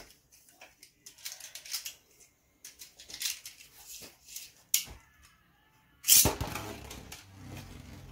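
A few small plastic clicks of handling, then about six seconds in a Beyblade is launched into a plastic stadium with a sudden loud burst. The spinning top keeps up a steady whir against the stadium floor after it lands.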